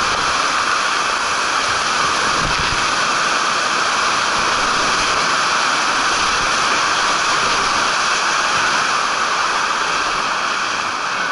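Steady rush of flowing water, an even hiss.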